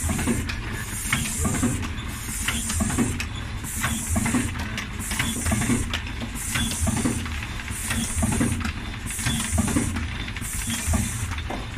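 K-cup filling and sealing machine running in its cycle. A hiss of air comes in regular bursts about every 1.4 s, with clicks and knocks from the mechanism over a steady low machine rumble.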